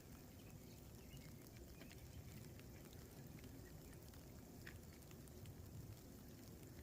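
Near silence: faint outdoor background noise with a few soft, scattered ticks.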